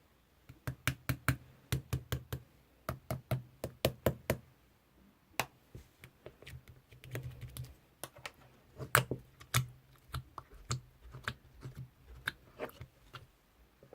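Slime being pressed and poked by hand, giving a run of sharp clicks and little pops in irregular clusters, fading near the end.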